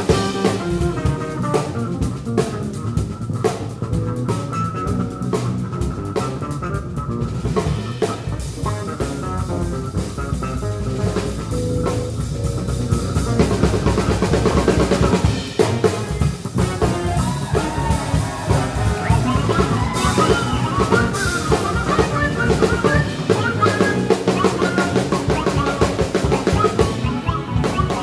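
Live band playing a busy jazz-funk groove led by a drum kit, with snare and bass drum hits, over electric bass guitars.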